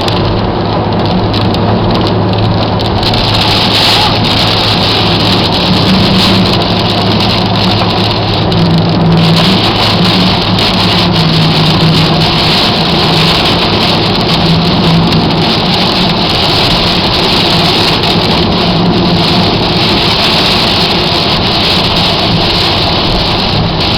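Heavy rain pouring down steadily, with a steady low hum underneath.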